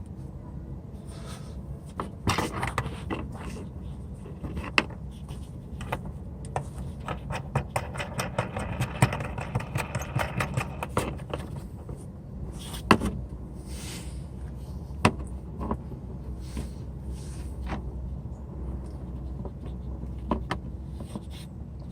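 Plastic fog light housing and its mounting hardware being worked into a truck bumper by hand: scattered clicks, knocks and scraping, a few sharper knocks standing out, over a steady low hum.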